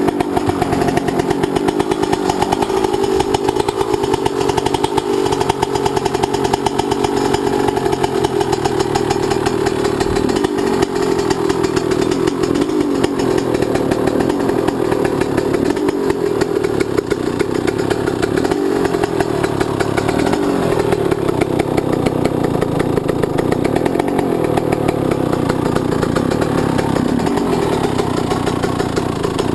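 Two-stroke 125 cc single-cylinder engine of a 2001 Yamaha YZ125 dirt bike running steadily at low revs on its first run after a rebuild with a new Wiseco piston.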